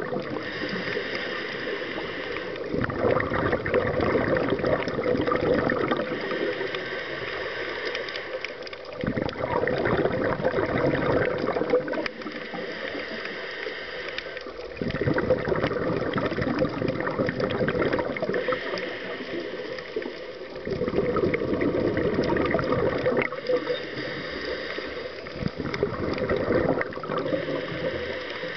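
Scuba diver breathing through a regulator underwater: quieter hissing inhales alternate with louder rushing, bubbling exhales, in a slow cycle of roughly five to six seconds.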